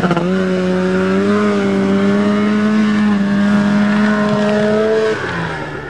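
Small off-road vehicle's engine held at steady high revs climbing a hill, then easing off and going quieter about five seconds in.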